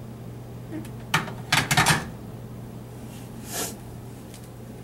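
A sharp click about a second in, then a quick rattle of clicks and knocks, and a short rustle a little later, over a low steady hum.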